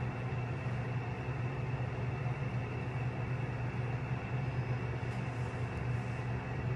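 Steady low mechanical hum with an even hiss, unchanging throughout: a machine or appliance running in the background.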